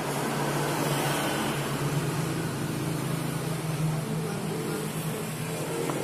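A steady low mechanical hum under a hiss, a little louder in the middle.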